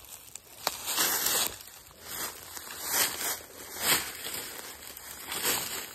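Footsteps crunching and rustling through dry brush and leaves in irregular bursts, with a sharp click under a second in.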